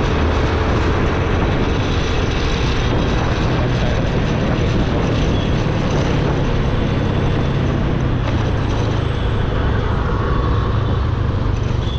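A Yamaha motorcycle's engine running at a steady cruise, under a continuous rush of riding wind on the camera microphone. The sound is loud and even throughout, with no sudden events.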